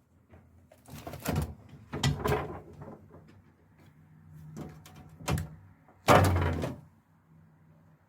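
Handling at a kimchi refrigerator: a string of knocks and thuds, like a lid or drawer and containers being moved and set down. The loudest thud comes about six seconds in.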